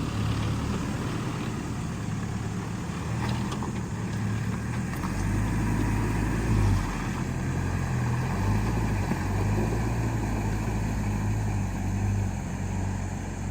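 Land Rover Defender engine running as the vehicle drives along, a low drone whose pitch rises and falls a little.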